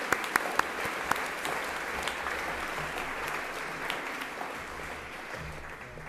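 Audience applauding, with a few sharp, close claps standing out in the first second; the applause fades away toward the end.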